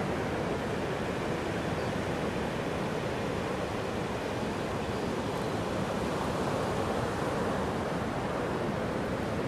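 Atlantic surf washing steadily onto a flat sand beach, an even rushing hiss of breaking waves with no single wave standing out.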